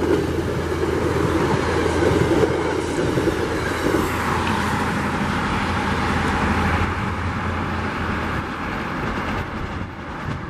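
Commuter train's passenger coaches rolling past on the rails and then receding, a steady rush of wheel and rail noise over a low hum that fades gradually after about seven seconds.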